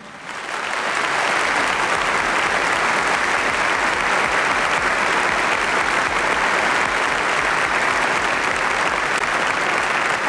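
A large hall audience applauding, building up within the first second and then holding steady.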